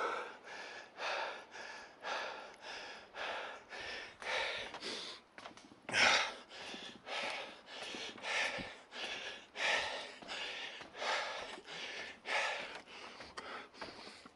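A man breathing hard and fast, quick puffs in and out about every half second, winded from climbing a long, steep stair.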